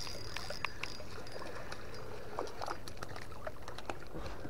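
A hooked crappie being reeled in on a spinning reel: soft reel noise with scattered light clicks, and faint water splashing and trickling at the surface.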